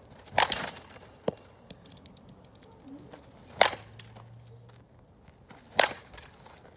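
Softball bat hitting tossed softballs in batting practice: three sharp cracks about two to three seconds apart, with faint clicks and rattles between them.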